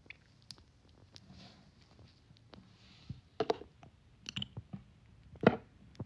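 Scattered small clicks and smacks close to the phone's microphone, with faint breaths between; the two loudest come about three and a half and five and a half seconds in.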